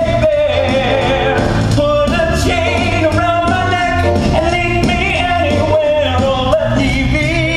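Live stage-musical performance of a rock-and-roll song: singing over a band with acoustic guitar and a steady bass beat.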